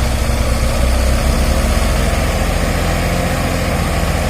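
Heavy diesel engine running steadily with a deep, low drone.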